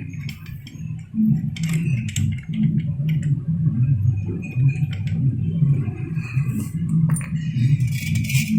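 Small metal motorcycle clutch parts clinking and clattering as they are handled, over a steady low hum.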